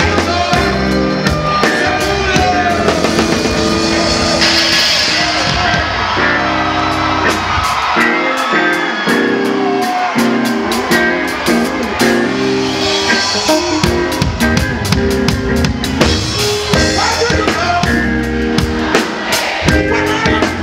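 Live reggae band playing loudly, with drum kit, bass and electric guitar driving a steady beat, and a singer's voice over it at times.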